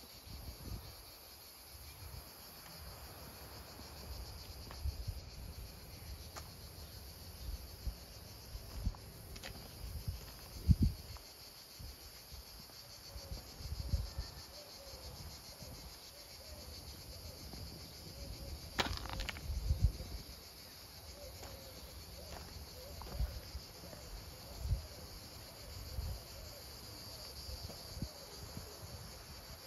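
Insects chirping steadily in an even, high-pitched chorus, with irregular low thumps and bumps underneath; the loudest of these come about eleven and twenty seconds in.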